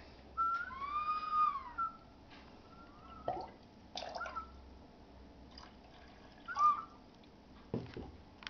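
Two-chambered ceramic whistling vessel with a rooster-head whistle, tipped so the water inside pushes air through the whistle. One long warbling whistle rises and falls about a second in, then short chirps and gurgles follow as water moves between the chambers, the loudest chirp near the end.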